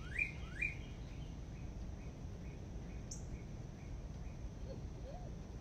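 A bird giving a series of quick rising chirps, about two a second, that stops less than a second in; after that only faint outdoor background noise.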